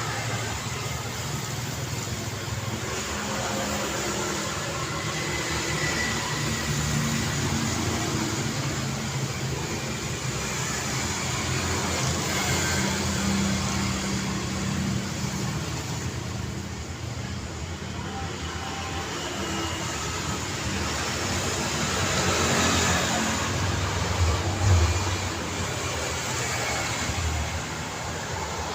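Road traffic: cars and motorbikes running past in a steady stream, engines humming, with a louder vehicle passing close about 23 to 25 seconds in.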